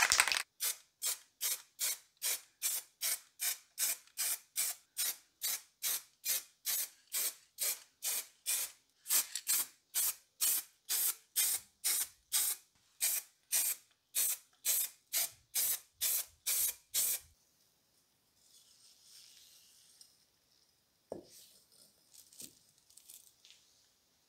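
Aerosol spray paint can spraying black paint in short, quick bursts, about two to three puffs a second, for some seventeen seconds, then it stops. A few faint rustles and a light knock follow as the painted parts are handled.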